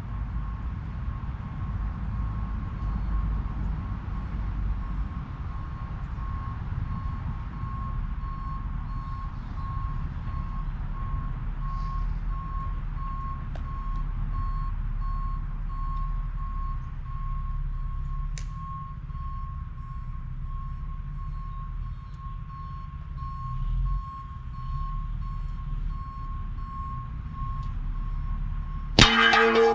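A steady low rumble with a faint, evenly pulsed beeping. Near the end, a single sharp crack as a Benjamin Bulldog big-bore airgun's hollow-point slug strikes the body armor plate and knocks it off its cinder block, with a brief ringing after it.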